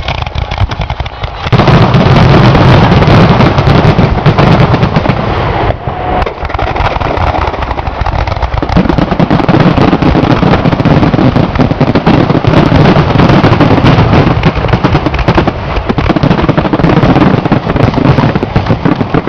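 Fireworks going off close by in a dense, rapid crackle of bangs and pops, very loud, starting suddenly about a second and a half in, with a brief lull around six seconds, then carrying on.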